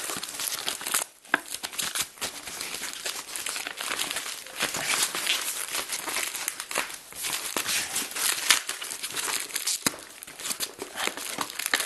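A postal package being torn open by hand, its packaging crinkling and crackling, with a short pause about a second in.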